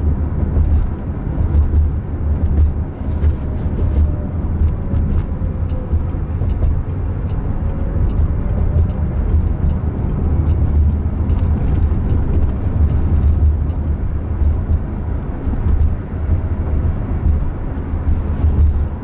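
Road and tyre noise inside the cabin of a Jaguar I-PACE electric car driving at speed: a steady low rumble.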